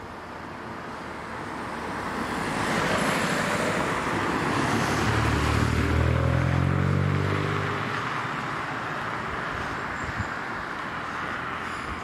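A car drives past. Engine and tyre noise builds over several seconds, is loudest about six seconds in, then fades away.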